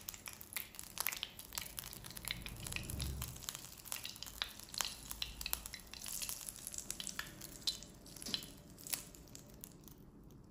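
Hot oven-baked bulgur and chicken pilaf sizzling and crackling, with melted butter poured onto it partway through and foaming on the hot surface. The crackling thins out near the end.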